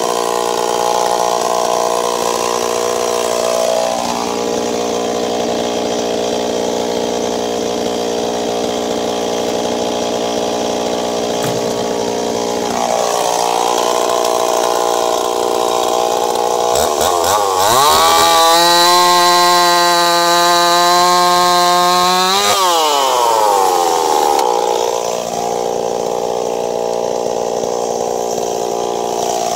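Ported Stihl 026 two-stroke chainsaw running at working speed. About two-thirds of the way through it climbs sharply to a higher, louder pitch, holds there for about five seconds, then falls back.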